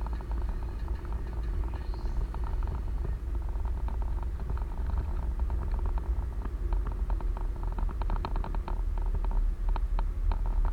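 Steady low rumble of a moving vehicle, with many small rattling clicks over it that come thickest in the last few seconds.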